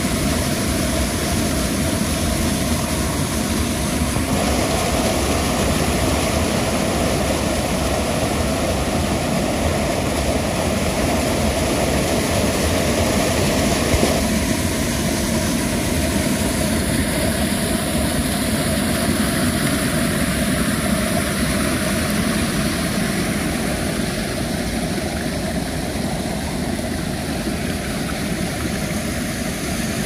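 Waterfall roaring: a loud, steady rush of falling water, its tone shifting abruptly about four seconds in and again near the middle.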